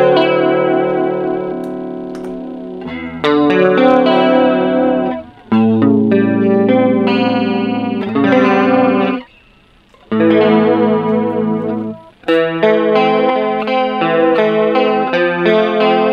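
Electric guitar played in phrases of chords and single notes through analog chorus pedals, first through an Ibanez SC10 Super Stereo Chorus, then through a Boss CE-2 Chorus. The playing breaks off briefly about nine seconds in, then resumes.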